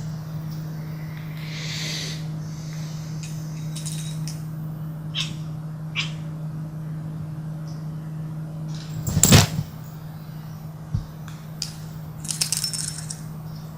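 Scattered clicks and light clattering from play with a cat, with one loud sharp knock about nine seconds in, over a steady low hum.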